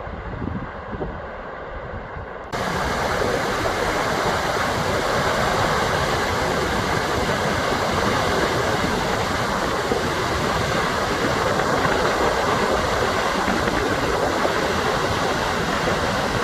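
A low, gusty rumble like wind on the microphone, then about two and a half seconds in a sudden switch to a loud, steady rushing noise with no pitch or rhythm.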